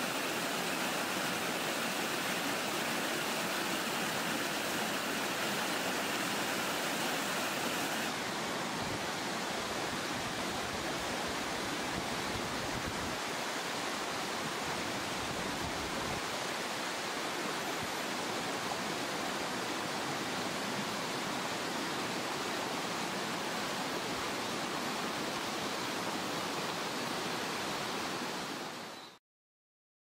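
Steady rushing of a rocky jungle stream or small waterfall, an even wash of water noise that falls away to silence about a second before the end.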